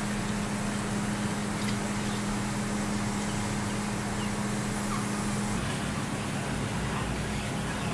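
Steady hum of kitchen fans: an even rush of air with a constant low tone under it.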